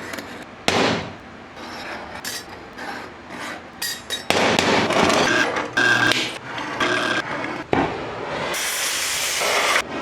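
Hand tools working a steel plate: a run of sharp metal knocks and taps mixed with scraping, rasping strokes, in short stretches that change every second or so.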